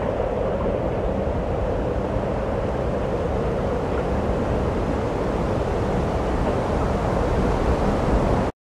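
Steady road noise of a car driving, a continuous rumble of tyres and engine that cuts off abruptly near the end.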